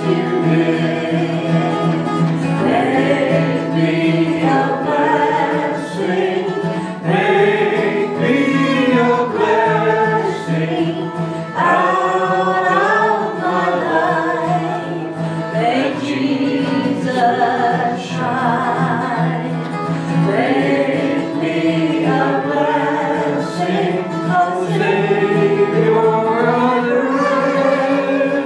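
A choir singing a gospel hymn with instrumental accompaniment, continuous throughout.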